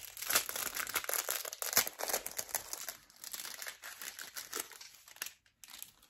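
Packaging crinkling and rustling as it is handled and opened, a dense run of crackles that stops a little after five seconds in, with one short burst just after.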